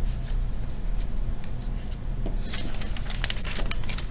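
A steady low electrical hum, with a brief patch of rustling and sharp clicks about two and a half seconds in.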